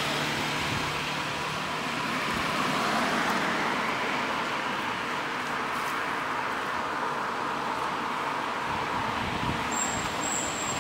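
Steady outdoor background noise with no distinct events, of the kind distant road traffic makes; two brief high-pitched chirps near the end.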